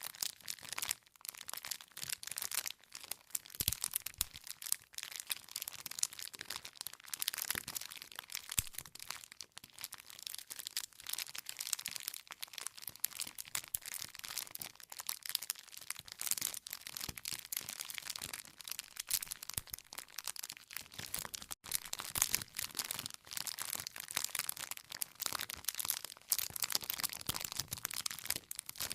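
Wood fire crackling continuously, with many irregular small pops and snaps of burning firewood.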